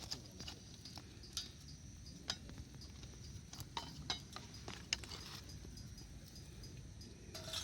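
Wood campfire crackling, with scattered sharp pops over a low steady hiss, and insects chirping faintly in a fast even pulse behind it.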